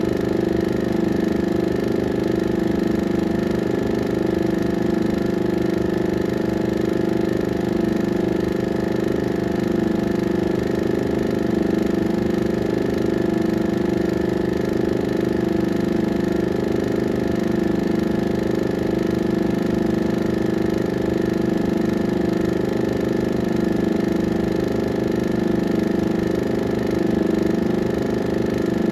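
A 16mm film projector running: a steady mechanical hum of several held tones with a fine, fast flutter underneath, the sound of the projector replaying a silent film.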